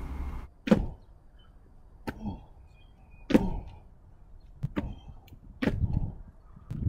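Shoes landing with six sharp thuds, roughly one every second and a quarter, from repeated jumps onto a concrete cinder block and back down onto gravel.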